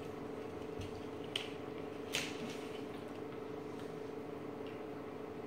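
Plastic water bottles being opened and drunk from: a few small plastic crackles and cap clicks in the first couple of seconds, over a steady faint hum.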